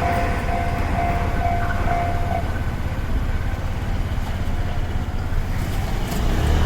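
Japanese level crossing warning bell ringing at about two strokes a second, then stopping a couple of seconds in as the crossing clears, over a steady low rumble of rail and road traffic.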